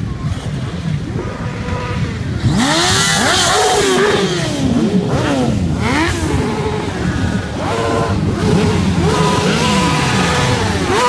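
A column of sport motorcycles riding past one after another, their engines revving, each rising and falling in pitch as it goes by. The sound gets louder about two and a half seconds in.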